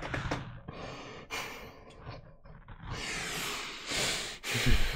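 A man's breathy, stifled laughter close to a microphone: a series of heavy exhalations and sighs, loudest near the end.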